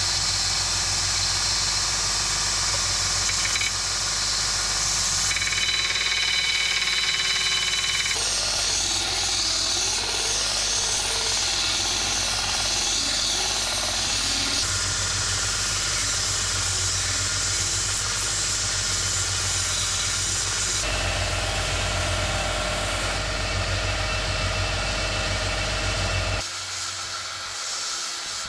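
Small bench belt sander running with its steady motor hum, grinding a steel knife blade and its wooden handle against the abrasive belt in a continuous rasping hiss that changes character abruptly several times. Near the end it drops to a much quieter steady background.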